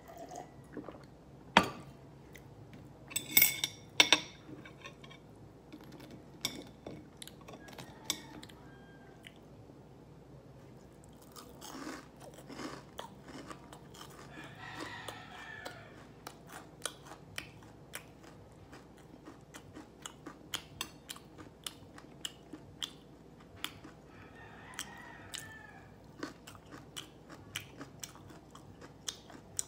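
Close-up eating sounds of yangnyeom fried chicken: crunchy bites and chewing, with a few sharp loud cracks in the first four seconds and then a steady run of small clicks and smacks.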